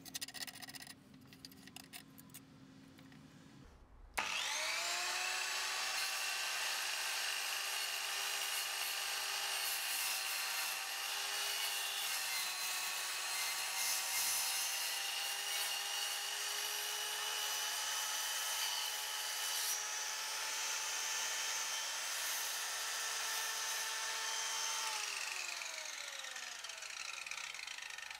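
Electric circular saw starting up about four seconds in, its motor whine rising and then holding steady while the blade cuts through a PVC figure and the wooden board under it. Near the end the saw winds down, the whine falling in pitch. A few faint clicks come before the start.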